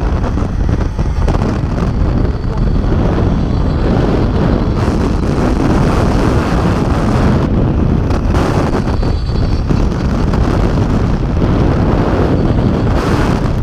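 Loud wind rushing and buffeting over a body-worn camera's microphone as a jumper falls on a controlled-descent wire, steady throughout.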